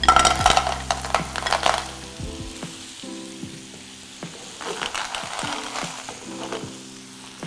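Clams tipped from a bowl into a hot frying pan, clattering onto the metal and sizzling loudly in oil with garlic and chilli. The frying quietens, then crackles up again about five seconds in as the pan is handled.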